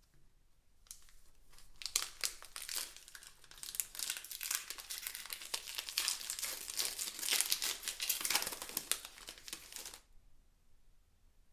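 Crinkly plastic packaging from a Pokémon card collection being handled, a dense run of crackling and rustling that starts about a second in, grows busier, and stops abruptly near the end.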